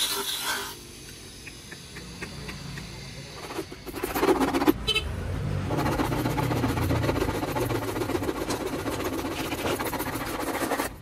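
Electric motor with an abrasive disc grinding the plastic edge of a car tail light lens, cutting off within the first second. After a quieter stretch and a short loud burst, a steady rough noise runs through the second half.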